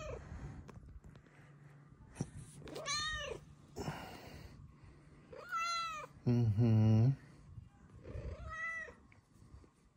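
Snow Lynx Bengal cat meowing four times, short friendly meows that rise and fall in pitch, a few seconds apart. A louder, low humming voice sound comes just after the third meow.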